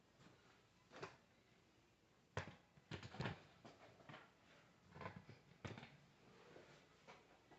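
Faint, irregular clicks and light knocks, a dozen or so, with the loudest cluster about two and a half to three and a half seconds in: handling sounds of small hard objects.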